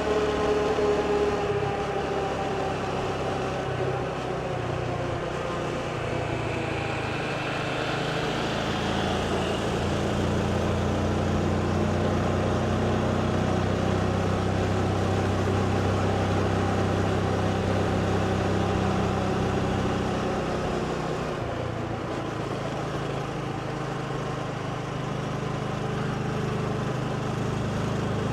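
Motorbike engine running while riding, its pitch falling slightly in the first couple of seconds and dipping briefly about 21 seconds in.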